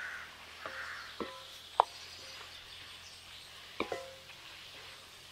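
Metal ladle knocking and clinking against a metal cooking pan about six times while goat intestine is stirred into the frying masala, each hit ringing briefly, over a faint sizzle. The loudest knock comes just under two seconds in.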